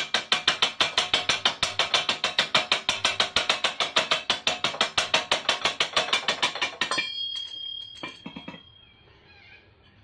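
Ratchet spanner being worked quickly at the mower engine's drive pulley: a fast, even run of metallic clicks, about seven a second, that stops about seven seconds in, followed by a few loose knocks.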